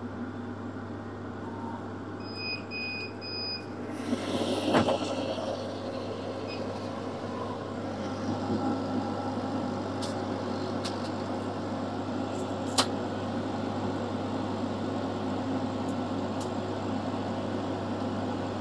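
Laser cutter's fans running with a steady low hum. About two and a half seconds in come three short electronic beeps as the cutting job ends, then a louder knock and rustle, and later a few light clicks as cut black acrylic letters are handled on the metal honeycomb bed.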